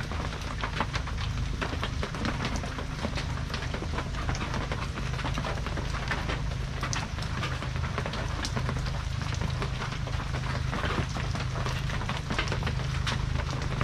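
Rain pattering steadily on a corrugated metal roof, a dense run of small ticks with a steady low hum beneath.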